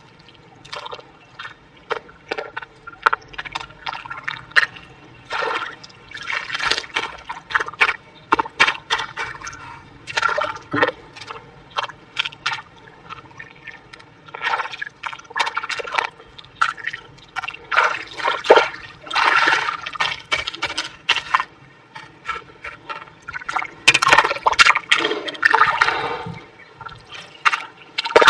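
Hands squelching and slapping wet mud and muddy water, in short irregular bursts.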